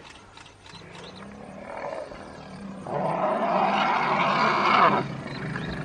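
African elephants calling: a low steady rumble, then a loud harsh roar from about three seconds in that lasts about two seconds and stops sharply.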